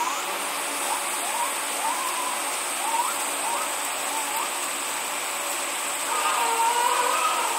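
A king penguin starting its wavering, trumpeting call about six seconds in, over the steady rush of water. Before it comes a run of about eight short, quick rising chirps.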